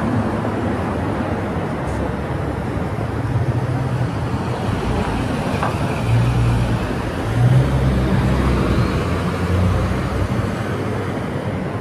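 Street traffic: cars and a full-size pickup truck driving past close by, a steady engine and tyre rumble that swells as each vehicle goes by, loudest around the middle.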